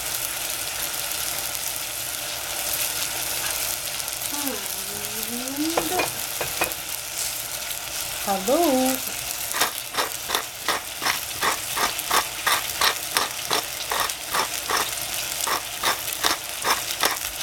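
Chopped tomatoes sizzling steadily in hot oil in a stainless steel pot. About halfway through, a pepper mill starts grinding over the pot in a quick, even run of clicks, about two a second.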